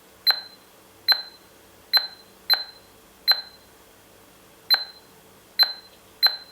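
Touch keypad of a smart door lock giving a short, high beep with each key press, eight presses at an uneven pace as a code is keyed in.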